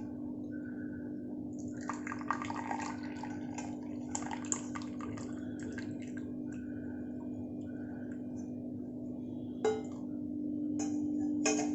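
Hot kadha being poured through a tea strainer into a cup: liquid trickling and dripping, with a few light clicks and a louder pour near the end. A steady low hum runs underneath.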